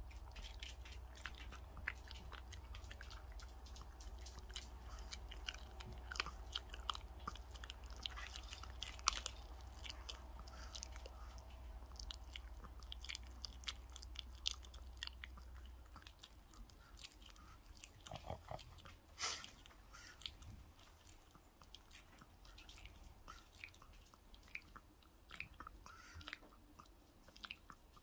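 A small dog chewing and biting on a piece of raw chicken held in a hand: a dense, irregular run of short wet clicks and crunches from its teeth working the meat.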